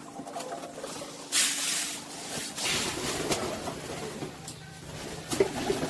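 Pigeons in their loft, with faint cooing and two loud rustling bursts about a second and a half and three seconds in, over a low steady hum.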